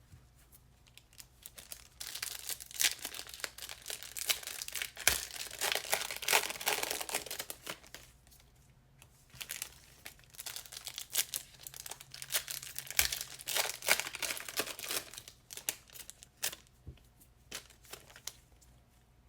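Plastic wrappers of Panini Prizm trading-card packs crinkling and tearing as the packs are handled and opened by hand, in spells of crackling with a few short pauses.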